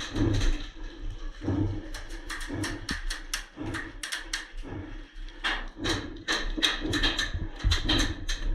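Footsteps and gear rattling as an airsoft player moves forward, with an irregular run of sharp clicks and knocks, several a second.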